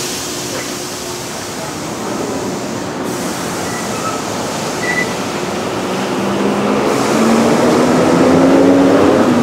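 Steady rumble and road noise of a slowly moving vehicle, growing louder over the last few seconds, with a faint hum that slowly rises in pitch near the end.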